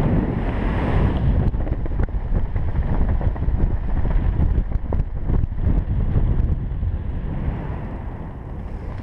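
Airflow buffeting the camera microphone under an open ram-air parachute canopy: a loud, gusty rush of wind noise that swells and dips, with a few short pops.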